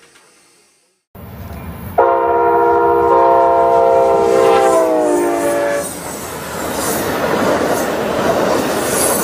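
Amtrak passenger train's diesel locomotive sounding its multi-note air horn for about four seconds, the chord dropping in pitch as it passes, then the train's rumble and wheel clatter on the rails. The train noise starts suddenly about a second in.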